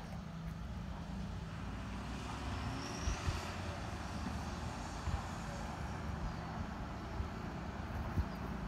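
Steady low rumble of a motor vehicle engine, with a swell of passing traffic about three seconds in and a few dull thumps.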